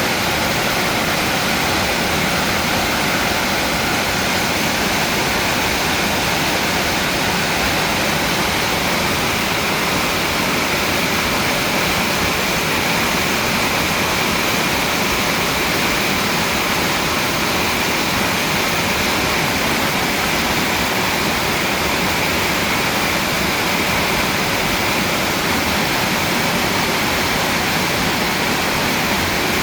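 Mountain stream rushing over rocks, a steady, unbroken rush of flowing water.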